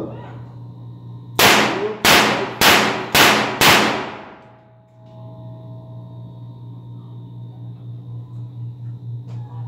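Five sharp primer pops, a few reports about half a second apart, each with a short metallic ring, from a barrel-less five-shot .38 revolver. The cylinder holds primed empty cases fired to test the reassembled action.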